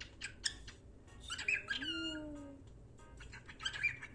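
Lutino cockatiel calling: a quick run of chirps at the start, a longer burst of chattering calls about a second and a half in, and another short burst just before the end.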